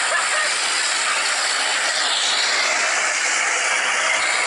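Steady hissing rush of a truck towing a trailer on the road, with no clear engine note or horn.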